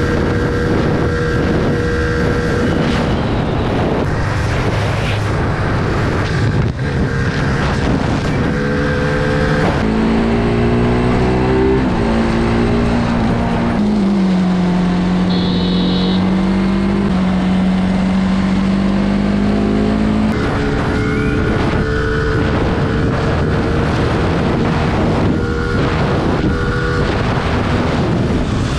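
Sport motorcycle engine running at highway speed, with wind noise on the microphone. The engine holds a steady note for long stretches, and its pitch steps down and back up around the middle.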